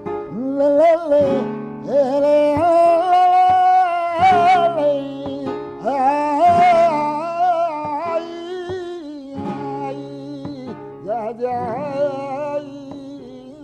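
Flamenco singing (cante) with acoustic guitar accompaniment: a solo voice holds long notes ornamented with wavering melismatic turns over the guitar.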